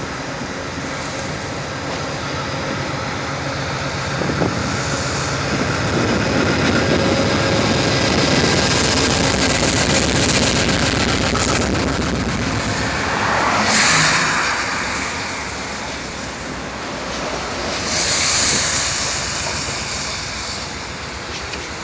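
Amtrak GE P42DC diesel-electric locomotive running and passing slowly close by, then its passenger cars rolling over the rails. It is loudest as the locomotive goes by, a little under halfway through, and there are two brief louder rushes of noise later on.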